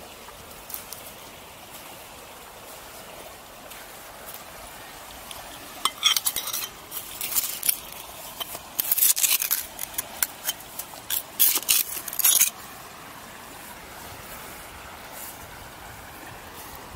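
Glass and pottery shards clinking and scraping as they are picked through by hand on the riverbank, a dense run of sharp clinks starting about six seconds in and lasting several seconds, over a faint steady hiss.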